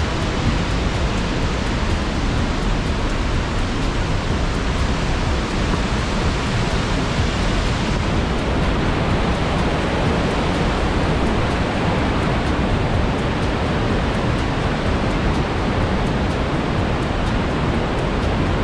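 The Hammersbach mountain torrent rushing through a narrow rock gorge: a loud, steady wash of white water.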